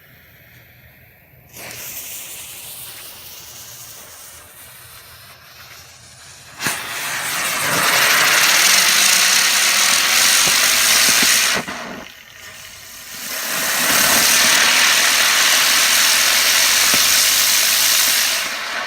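TNT Fireworks Dancing Devil ground spinner going off in two stages: a quieter hiss from about a second and a half in, then a pop and a loud rushing hiss of spinning sparks for about five seconds. After a short lull the second spinner takes over with another loud hiss of about five seconds that fades near the end.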